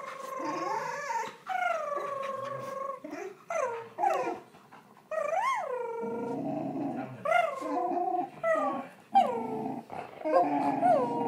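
A pet dog vocalizing in a long run of Chewbacca-like moaning groans while being petted: some calls are held steady for over a second, others are short and swoop up and down in pitch, with brief pauses between them.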